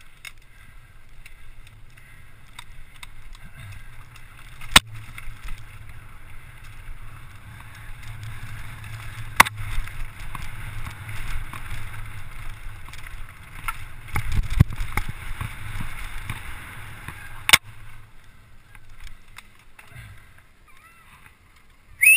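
Enduro mountain bike running fast down a rocky, gravelly trail: a steady rough noise of tyres over stones and the bike rattling, with three sharp knocks as it strikes rocks and a rougher stretch about two-thirds of the way through. A brief high squeal at the very end.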